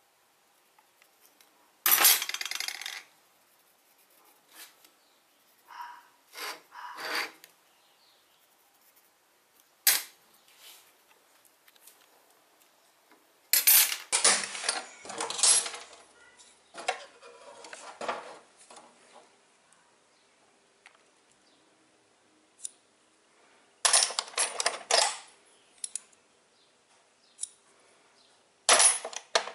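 Steel rods and hand tools being picked up and set down on a steel workbench top: several short bouts of metallic clanking and rattling with quiet gaps between them.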